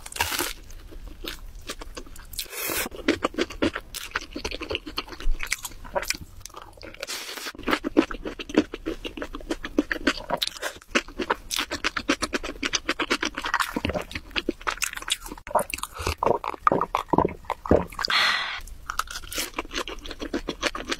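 Close-miked chewing of crispy food: a rapid, dense crackle of small crunches, with a few louder bites.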